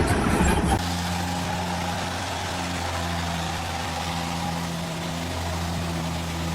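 A loud, rough low rumble for the first second, then an abrupt change to an engine running steadily with an even low hum.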